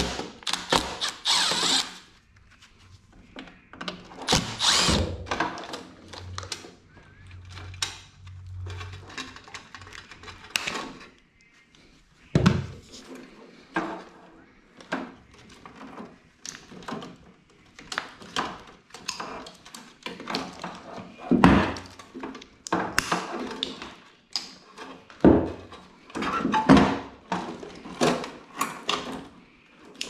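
Cordless drill/driver running briefly in the first two seconds as screws are backed out of an air conditioner's control panel. After that come irregular clicks, knocks and metallic clatter as wires are cut and parts are pulled out of the panel.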